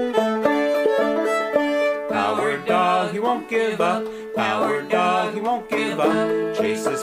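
Instrumental theme-song music in the key of D. Held notes for the first two seconds, then a melody line with wavering pitch comes in.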